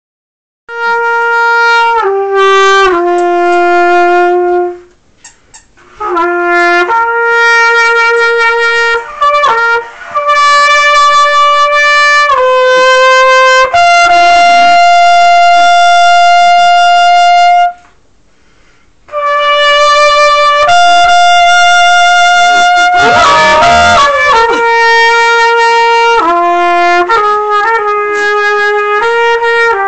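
Trumpet playing slow, long-held notes that step from pitch to pitch, with two short breaks. About three quarters of the way through, a pit bull puppy howls along, a wavering, gliding sound that bends up and down over the held trumpet note.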